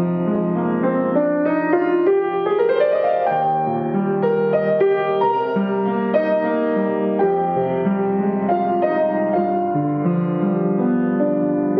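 Piano playing the instrumental introduction of a choral song, a run of struck notes and chords left to ring.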